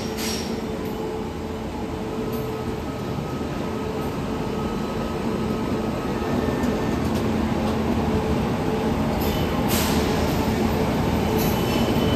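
Passenger train coaches rolling slowly past a station platform: a steady rumble of wheels on the rails that grows a little louder toward the end, with a brief high hiss about ten seconds in.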